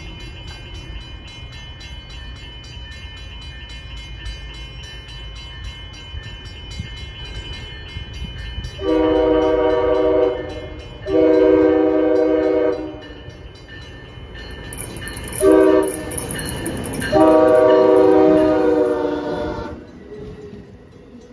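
Amtrak train horn sounding the long-long-short-long signal as the train approaches: two long blasts, a short one, then a final long one. The train's low rumble runs underneath, and the train is passing close by near the end.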